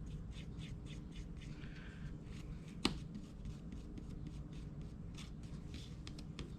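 Quick short scratchy strokes of white wax being rubbed onto a small rough-cut wooden piece, with one sharp click about three seconds in.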